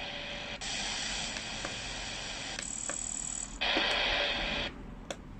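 Shortwave static and hiss from the Retekess V115 radio's speaker, switching abruptly in tone and loudness in several steps, with a few faint clicks.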